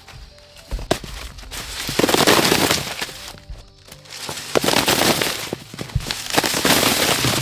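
Dry corn husks and leaves rustling and crackling as they are handled, in two long stretches with scattered sharp snaps, over soft background music.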